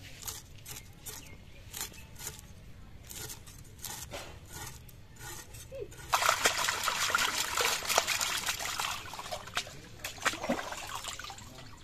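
A few light clicks and knocks, then water poured and splashing. It starts suddenly about six seconds in, runs loudly for about three seconds and trails off.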